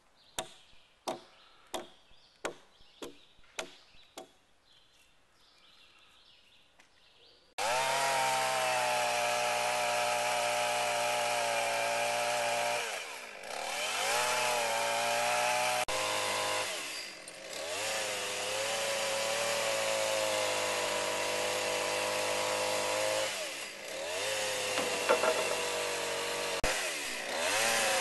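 A series of sharp knocks, about two a second, for the first few seconds. Then, after a pause, a chainsaw starts abruptly and runs at high speed, its pitch dropping and recovering four times as it works.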